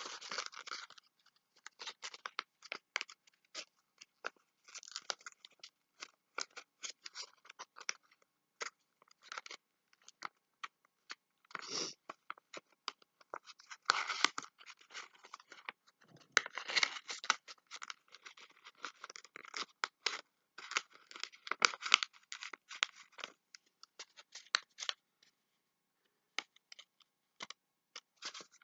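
A sheet of paper being folded and creased by hand into an origami box: irregular crinkling and rustling with crisp snaps of creases. It is busiest in the middle and thins out to a few taps near the end.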